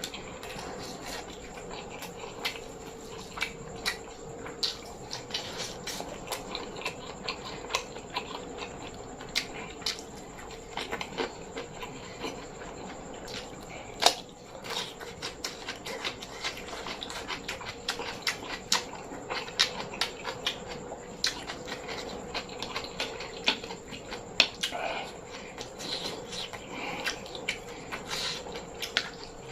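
Mouth sounds of eating: chewing and smacking, heard as a run of short sharp clicks and pops with one louder click about halfway through.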